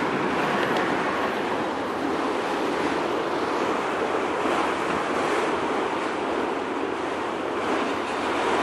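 Autorack freight cars rolling past: a steady rushing noise of steel wheels on the rails.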